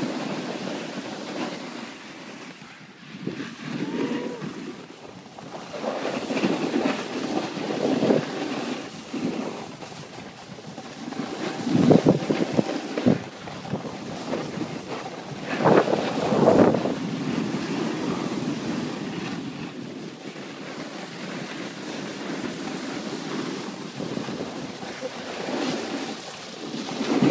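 Wind rushing over the microphone and snowboards sliding and scraping on snow, with louder surges about twelve and sixteen seconds in.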